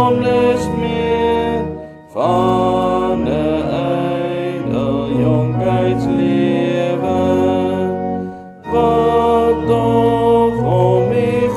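A metrical psalm sung slowly in Afrikaans, with long held notes over a steady accompaniment and two brief breaks between lines, about two seconds and eight and a half seconds in.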